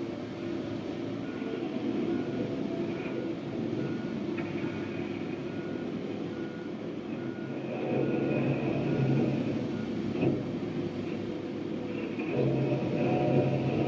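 Heavy snow-removal machinery at work: a big engine running with a steady rumble that swells twice as it revs, and a reversing alarm beeping evenly over it for much of the time.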